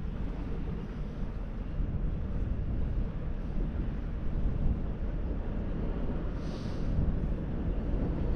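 Wind buffeting the microphone as a steady low rumble. A brief hiss comes about six and a half seconds in.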